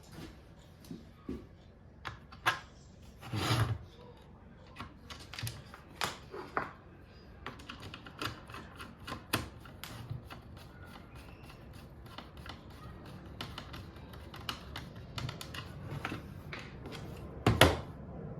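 Irregular clicks and taps of small tools and plastic and metal parts being handled while a cordless compressor is taken apart, with a louder clatter about three and a half seconds in and another shortly before the end.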